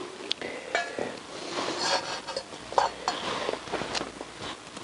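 Small metal bowl clinking and knocking as it is set down on the floor and the brake bleed tube is fed into it, with handling noise between. There are a few light metallic clinks, one ringing briefly about a second in.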